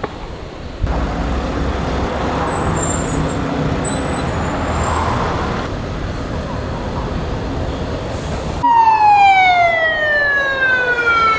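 Street traffic noise, then about three-quarters of the way in an ambulance siren starts loud with one long wail falling steadily in pitch.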